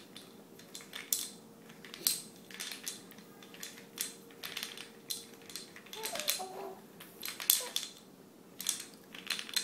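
Irregular clicks and rustles, coming in small clusters every half second or so, over a faint steady hum; a brief faint pitched sound about six seconds in.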